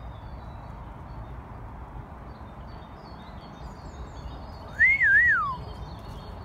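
A person gives one loud whistle to call a dog about five seconds in: a clear tone that rises, dips, rises again and falls away. Faint birds chirp in the background.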